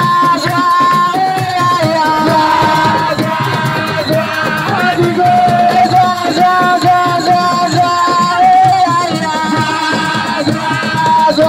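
Live assiko music: a lead voice holding long, wavering notes over a busy hand-drum and percussion rhythm.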